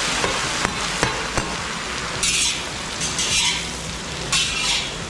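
Chopped onions and whole spices sizzling in hot oil in a large kadhai, stirred with a long metal ladle. A few sharp ladle clicks against the pan come in the first second and a half, then the sizzle surges about once a second with each stir.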